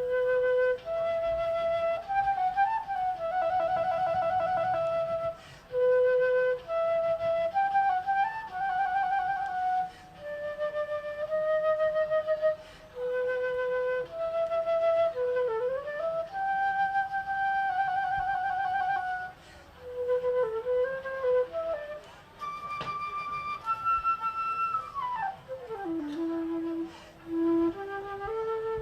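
Solo flute playing a melodic line: held notes, some with a wavering vibrato, broken by short pauses between phrases. Now and then a note slides up, and near the end one slides down steeply into a low note.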